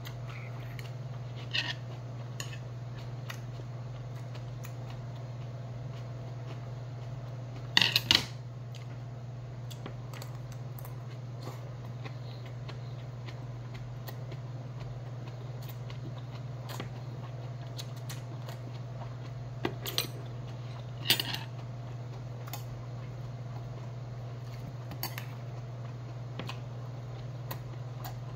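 Metal spoon and chopsticks clinking against a stainless steel rice bowl and side-dish bowls in occasional sharp clicks, the loudest a quick cluster about eight seconds in, over a steady low hum.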